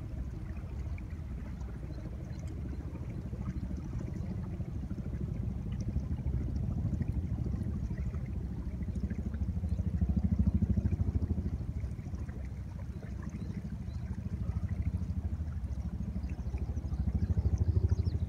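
Distant helicopter, its rotor giving a steady low, fast-pulsing thud that swells louder about ten seconds in and again near the end.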